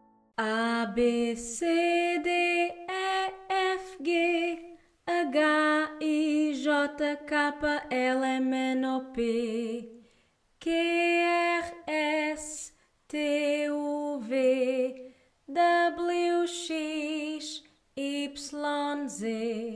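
A woman singing the European Portuguese alphabet unaccompanied, holding the letter names on sung notes in short phrases with brief pauses between them.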